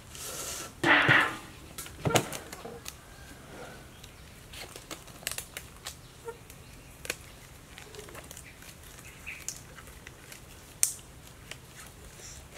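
Thin disposable gloves being shaken open and pulled onto hands: a loud flapping rustle about a second in, then scattered crinkles and sharp snaps of the glove material.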